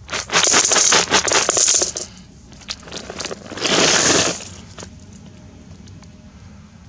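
Russian ruble coins poured from a plastic jug into a galvanized metal bucket of coins: a dense jingling clatter for about two seconds and a few scattered clinks, then a second shorter burst of clattering coins about four seconds in.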